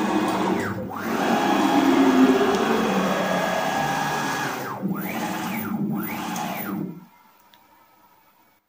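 NEMA 23 stepper motors on DM542 drivers moving the axes of a home-built CNC router through ball screws at rapid feed: a steady whine whose pitch sweeps down and back up as the axes slow, reverse and speed up again, once about a second in and several times in quick succession near the middle. The motors stop about seven seconds in.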